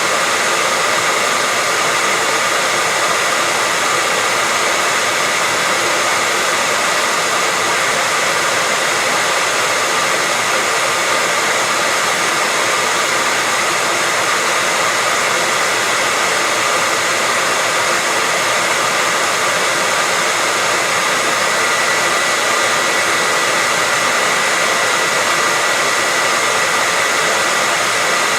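Hair dryer running steadily as white noise for lulling a baby to sleep: an even, constant rush of air with a faint high whine.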